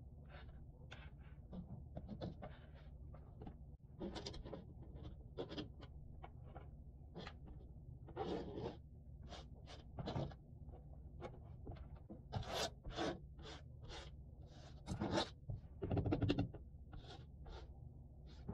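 Cardboard jigsaw puzzle pieces being handled: short, irregular scrapes and rustles as pieces slide across the table and are pressed into place, over a steady low hum.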